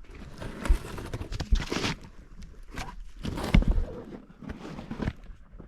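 Footsteps crunching on a dirt trail, irregular steps with low thumps.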